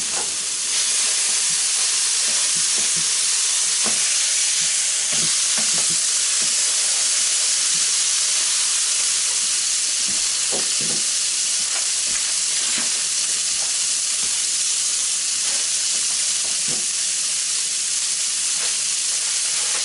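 A beef burger patty and buns frying in lard on a stovetop griddle: a steady, high sizzle with occasional small pops of spitting fat.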